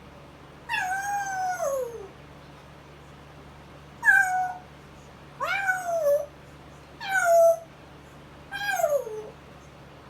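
Five meow-like calls, each about half a second to a second and a half long, most sliding down in pitch at the end. It is a pet imitating a cat's meow.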